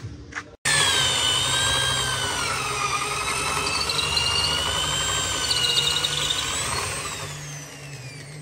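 Corded electric drill with a long auger bit boring into the end of a solid hardwood slab, for the hole of a tie rod meant to stop the slab cracking and warping. The motor whines loudly, its pitch wavering as the bit bites, then winds down near the end.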